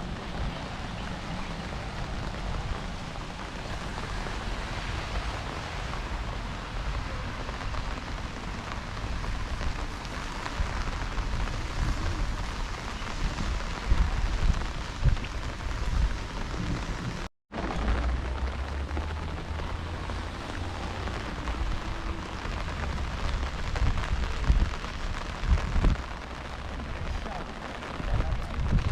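Heavy rain falling, a steady hiss with a low rumble underneath. The sound cuts out for an instant about halfway through.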